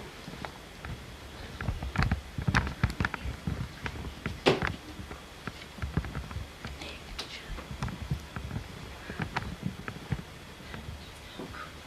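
Soft footsteps with scattered creaks and knocks as people creep up the stairs of a house, irregular rather than rhythmic, with one louder knock about four and a half seconds in.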